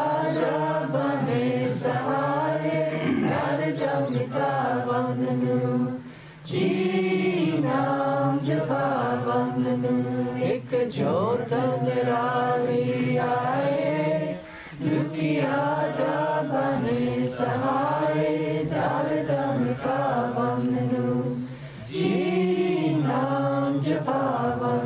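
Devotional chanting: a hymn sung in long, drawn-out phrases, with a short pause about every seven or eight seconds.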